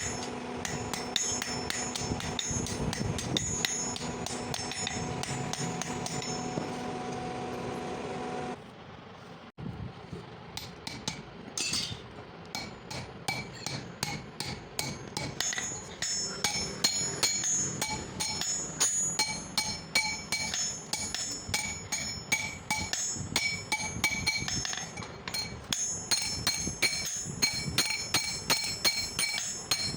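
Hammer blows on leaf-spring steel on an anvil, a long run of ringing metallic strikes. A steady machine hum runs under the first strikes and cuts off about eight seconds in; after a short lull the hammering resumes with a bright ring on each blow.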